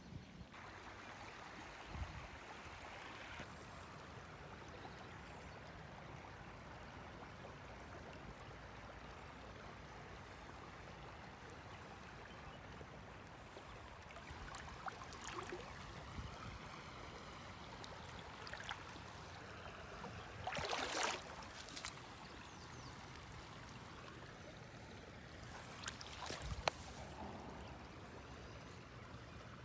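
Shallow creek water trickling and flowing steadily, faint. A few brief noises of movement break in, the loudest a short rushing noise about two-thirds of the way through.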